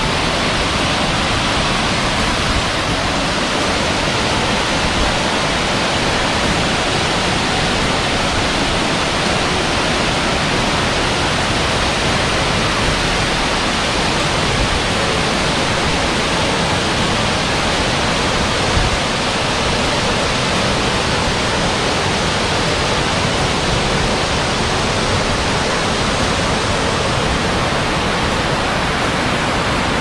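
A waterfall of about 30 m, its water pouring down a rock face in a steady, loud rush without a break.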